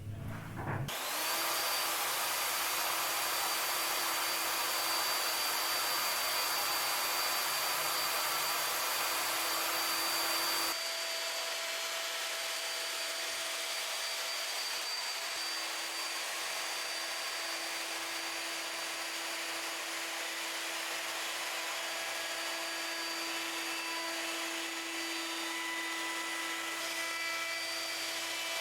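Trend electric router starting up, its whine rising to a steady high pitch about a second in, then running steadily while routing flutes into oak. Its sound changes about ten seconds in and then holds steady again.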